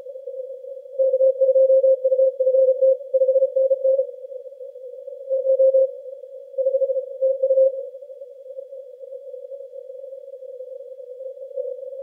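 Morse code (CW) received on the 80-metre band through a Yaesu FTdx10 transceiver with a narrow CW filter. A single keyed tone sends dots and dashes in groups from about one to four seconds in and again between about five and eight seconds, over steady band noise.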